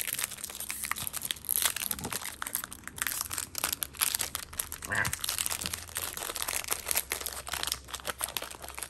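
The foil wrapper of a Pokémon TCG Brilliant Stars booster pack crinkling and tearing as it is worked open by hand, in a dense, irregular run of crackles.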